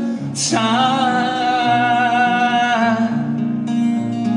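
Song with acoustic guitar: a singer holds one long sung note starting about half a second in, over the guitar.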